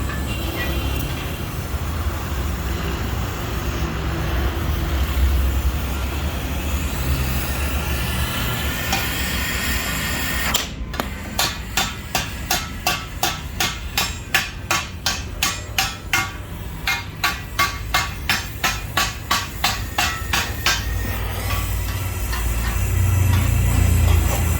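Hammering: a run of evenly spaced strikes, about three a second, lasting about ten seconds and starting about eleven seconds in, over a steady low rumbling background.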